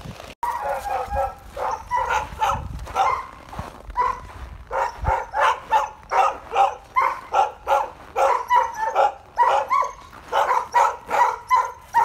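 West Siberian Laika barking in a fast, steady run of about three barks a second.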